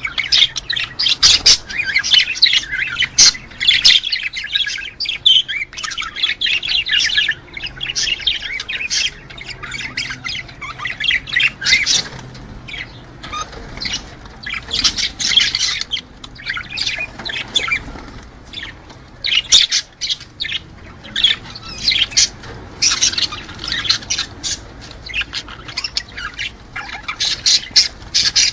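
Several budgerigars chattering: quick warbles, chirps and squawks in runs with short lulls. This is the courtship and breeding chatter of budgies.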